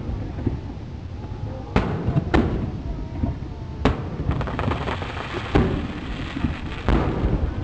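Aerial firework shells bursting: three separate sharp bangs in the first four seconds, then from about halfway a dense crackling of many small reports with two more loud bangs, over a low rumble.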